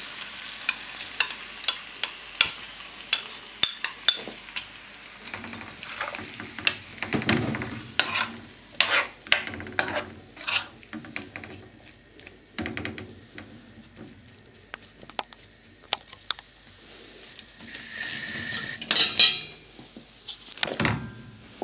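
Metal spoon stirring vegetables and chicken in tomato sauce in a non-stick frying pan, with many sharp clicks and scrapes of the spoon against the pan over a light sizzle. A louder burst of hiss comes near the end.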